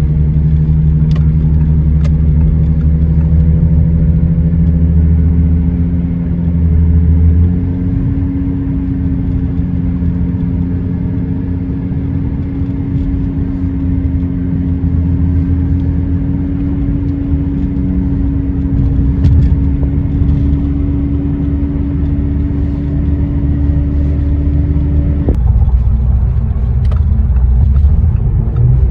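2013 Audi A6 (C7) on the move: tyre and road rumble with a steady low drone. The drone steps up slightly in pitch about seven seconds in, and part of it cuts off suddenly about 25 seconds in.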